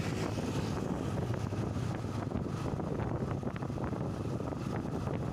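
Steady wind rumble on the microphone of a motorcycle riding along, with the bike's engine and road noise underneath.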